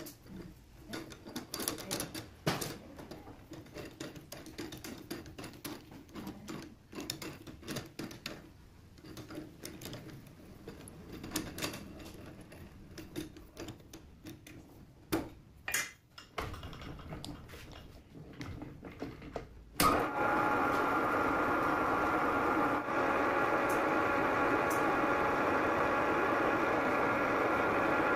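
Metal clicks and knocks of a four-jaw lathe chuck being adjusted with a chuck key. About two-thirds of the way through, the metal lathe starts suddenly and runs at a steady hum with several steady tones.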